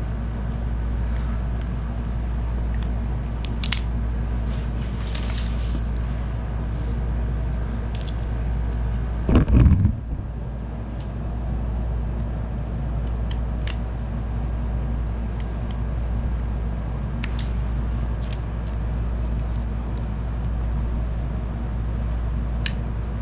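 Utility knife cutting through old linoleum flooring along a tile edge: scattered faint scrapes and clicks over a steady low hum, with a louder thump about nine seconds in.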